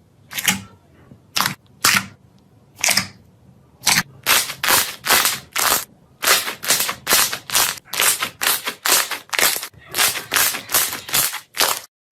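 Slime being pressed and poked, giving a run of loud, sharp pops: a few spaced-out pops at first, then a quick series of about three a second from about four seconds in, stopping shortly before the end.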